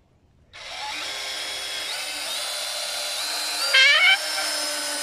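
Cordless drill boring into the wooden ladder frame, starting about half a second in. Its motor whines steadily, stepping up in pitch a few times, and surges briefly louder a little before the four-second mark.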